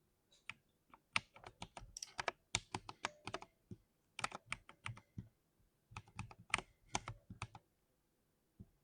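Typing on a 60% keyboard: quick runs of key clacks with two short pauses, trailing off to one last keystroke near the end.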